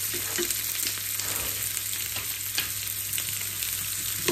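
Sliced onions sizzling in oil in a frying pan and being stirred with a wooden spoon, with a few light knocks of the spoon against the pan.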